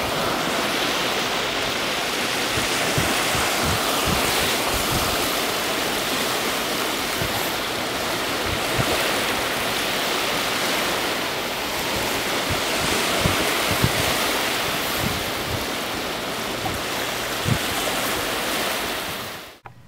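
Sea surf: a steady rush of waves on a shore, with a few low thumps underneath. It cuts off suddenly near the end.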